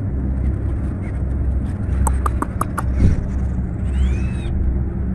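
Chickens foraging, with a quick run of about five short clucks a little after two seconds in, over a low steady rumble.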